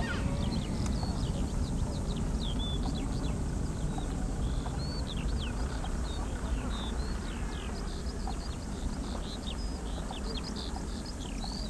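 Low, steady rumble of a departing Boeing 747-400 freighter's four jet engines, slowly fading as it climbs away, with birds chirping over it.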